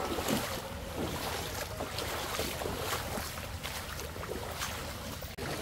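Shallow stream water flowing and splashing around feet wading through it, with wind rumbling on the microphone.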